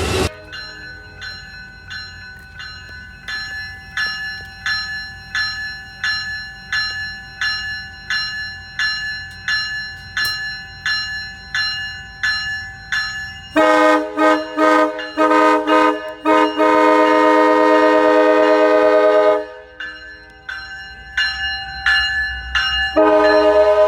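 A bell ringing steadily at about one and a half strikes a second. A few seconds past the middle, a multi-chime train horn sounds a quick run of short blasts and then one long blast. The bell is heard again after it, and the horn comes back in just before the end.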